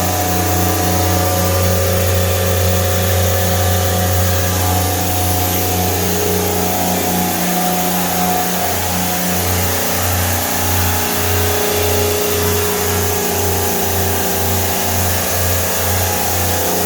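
Helios Cut 500 CNC machine running its table-milling program: a steady motor hum with a hiss of water and cutting as the spinning tool skims 2 mm off the table. About halfway through, the low hum starts pulsing regularly, about twice a second.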